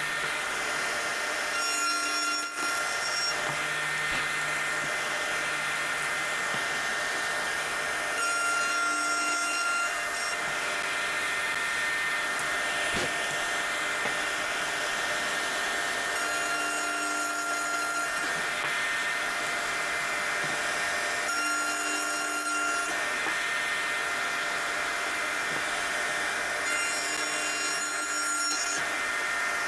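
Electric wood router running continuously, cutting finger-joint slots in wood: a steady high motor whine, with the cutting noise changing every few seconds as it moves through the wood.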